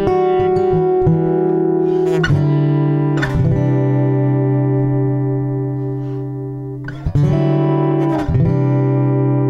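Instrumental guitar music: chords strummed and left to ring, changing every second or so, then one chord held and slowly fading for about four seconds before new strums near the end.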